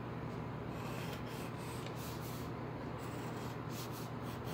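Graphite pencil scratching and rubbing on paper in short irregular strokes as a car is sketched, against a steady low hum.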